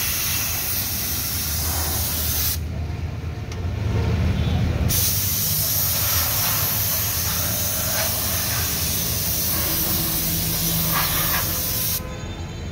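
Pressurised spray hissing steadily as a fine mist of petrol wash is sprayed over a car's engine bay, under a low rumble. About two and a half seconds in the hiss stops for about two seconds while the rumble grows louder, then resumes, and it stops again near the end.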